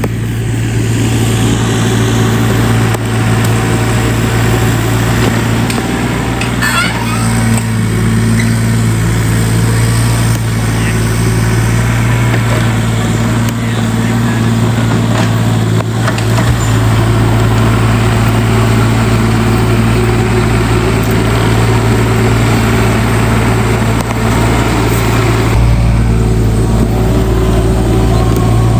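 Engine of the earth-moving machine that backfilled the electrical trench, running steadily with a constant low hum and no marked revving.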